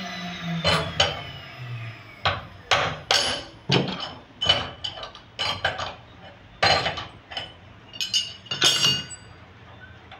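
A series of irregular hammer blows, about fifteen sharp knocks over nine seconds, some with a short metallic ring.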